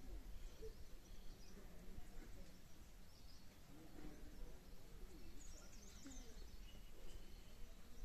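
Faint outdoor morning ambience: scattered small-bird chirps, with a cluster about five and a half seconds in, over faint distant voices and a low steady hum.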